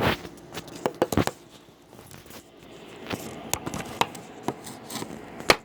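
Handling noise: irregular clicks, knocks and crinkling of objects being picked up and moved, with a sharp knock near the end.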